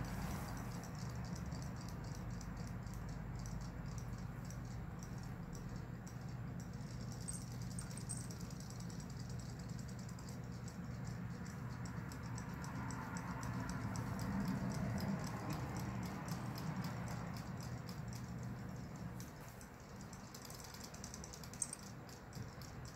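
Battery-powered WoLover robotic fish toys swimming in a plastic basin of water, their tail motors giving a fast, steady ticking rattle over a low hum. A single sharp click near the end.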